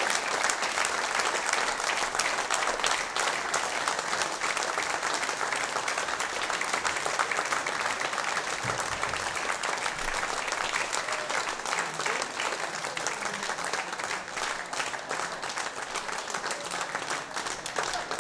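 Concert audience applauding: dense, continuous clapping that eases off slightly towards the end.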